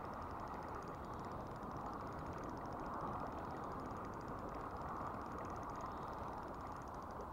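Steady rushing of river water, with a fast, even chirring of insects high above it, about ten pulses a second, which stops near the end.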